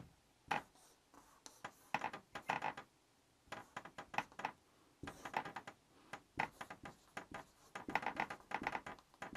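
Marker pen squeaking and scratching on a whiteboard, faint, in short strokes with pauses between them.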